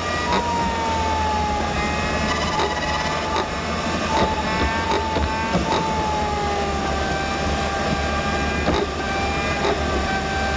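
Hyundai Veloster N's turbocharged four-cylinder and road noise heard inside the cabin on the expressway, played back fast-forwarded, so the engine drone sits as a steady high whine that sags slightly in pitch, with scattered short ticks.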